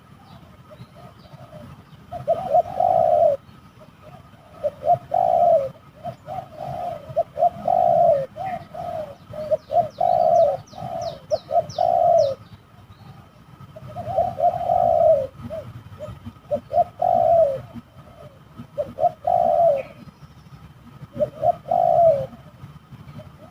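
Spotted dove (tekukur) cooing: short phrases of several soft, low coos repeated every couple of seconds.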